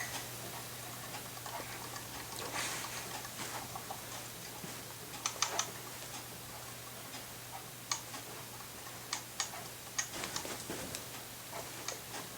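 Switched-off ceiling fan coasting down: a faint steady low hum with scattered light ticks and clicks at irregular intervals.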